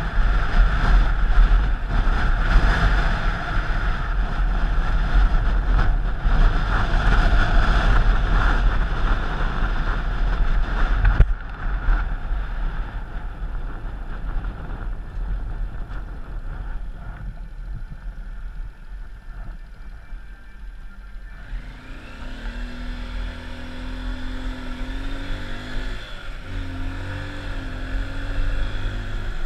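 Wind rushing over the microphone of a moving vehicle, with a low road rumble, dropping off abruptly about eleven seconds in to a quieter rumble. In the last several seconds a vehicle engine note comes up, its pitch stepping up and down as it changes speed.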